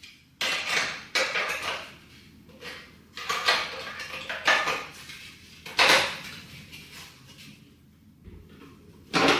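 Hard plastic parts of a tower fan's two-piece base knocking and scraping as they are handled and fitted together: a string of irregular clacks and rubbing sounds, the sharpest about six seconds in and just before the end.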